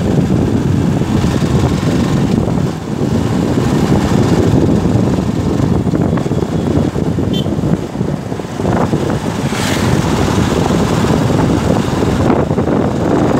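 Motorcycle riding along a road, its engine running under steady gusty wind buffeting on the microphone.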